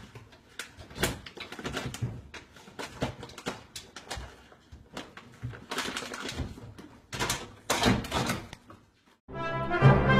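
Irregular knocks, taps and scrabbling from a cat climbing over a microwave into a wooden kitchen cabinet, with a few louder knocks near the end. Brass music starts in the last second.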